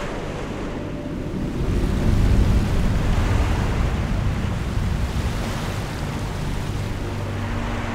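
Ocean waves and wind, the surf swelling louder about two seconds in, over a low steady drone.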